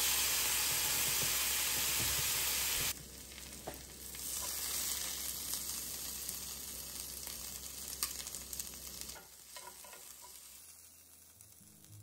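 Chicken searing in an oiled cast iron skillet with a loud, steady sizzle. About three seconds in it gives way to the quieter sizzle of sliced peppers and onions frying in a cast iron grill pan, with a few sharp clicks of metal tongs, fading near the end.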